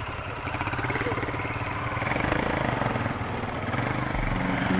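Bajaj Dominar's single-cylinder engine running at low speed as the motorcycle is ridden slowly, a steady engine note growing slightly louder.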